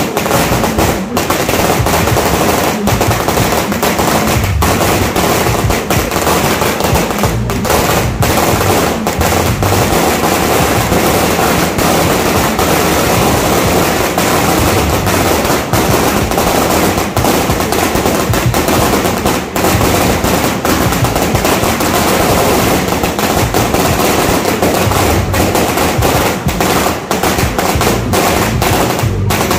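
A 5000-round firecracker string going off in a continuous, rapid crackle of bangs, with only a brief dip here and there.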